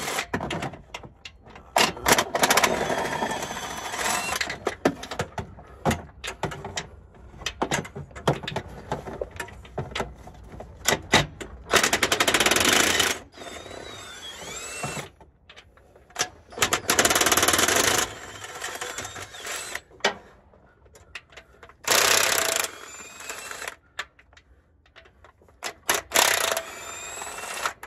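Cordless impact wrench run in several short bursts of about a second each, working bolts loose under a truck's transmission. Between the bursts come sharp clinks and knocks of sockets and metal parts.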